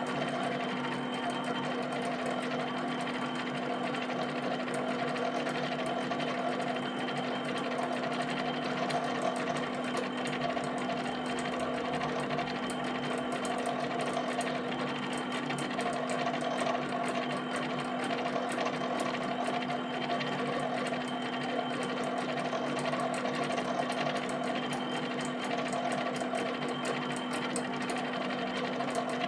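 HP 7585B pen plotter drawing rows of dots: a steady mechanical chatter of its motors driving the pen carriage and paper, with a rapid run of small pen-down taps over a constant hum.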